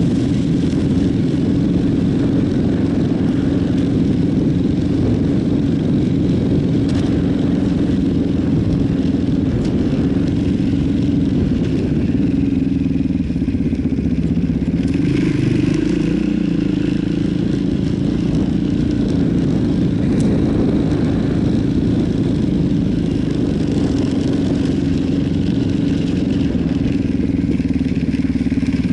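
Yamaha Warrior 350 quad's single-cylinder four-stroke engine running as it is ridden over a dirt trail, the note holding mostly steady and shifting briefly a little past halfway.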